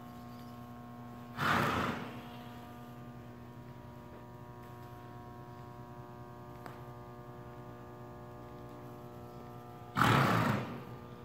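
Steady electrical hum, broken twice by a short, loud rush of noise, about a second and a half in and again near the end, each starting abruptly and dying away in under a second.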